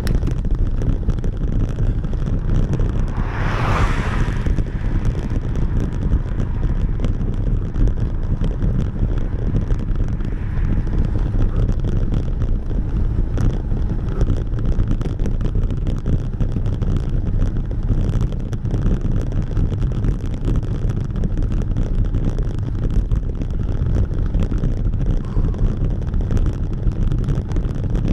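Wind buffeting an action camera's microphone while riding, a steady low rumble, with a brief louder hiss about three seconds in.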